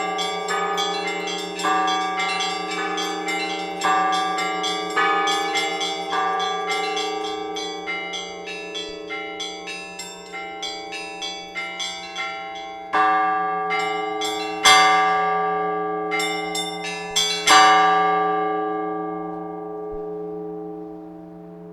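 Orthodox church bells pealing, several bells of different pitches struck about twice a second and slowly growing quieter. In the second half come a handful of louder strokes, the loudest about three-quarters of the way through. After that the bells are left to ring out and fade, a low hum lingering.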